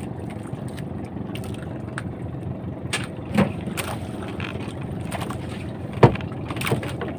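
Outrigger fishing boat's engine running steadily at low revs, with a few knocks on the wooden hull, the loudest about six seconds in.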